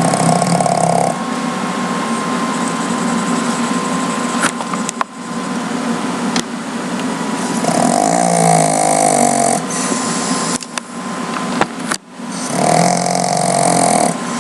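A sleeping pet snoring: three long snores of about two seconds each, one ending about a second in, one past the middle and one near the end. Between them there is a steady background hiss and a few short clicks.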